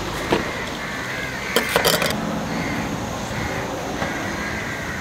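Street background of traffic hum and crows cawing, with a few sharp knocks on a stainless-steel counter as dough is cut and handled: one just after the start and a quick cluster about two seconds in.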